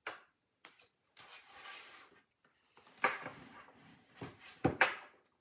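Thick tarot cards being handled: a soft rustle as cards slide against each other, and several sharp clicks and knocks of card stock being tapped and set down, the loudest near the end.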